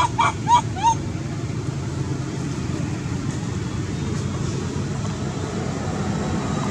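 A young macaque gives four short, rising-and-falling squeaks in quick succession in the first second, over a steady low rumble.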